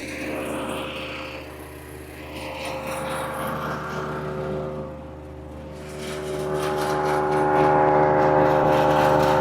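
An engine running steadily, getting louder about six seconds in.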